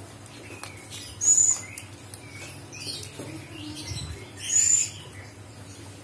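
Buffy fish owl drinking from a small plastic cup held up by hand, with faint soft clicks and patter. Two short, very high-pitched squeaks stand out, one about a second in and another about four and a half seconds in.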